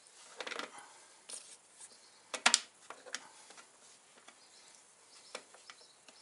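Scattered metal clicks and rattles of a motorcycle roller chain and a chain breaker tool being handled and clamped onto a link, loudest in a quick cluster about two and a half seconds in.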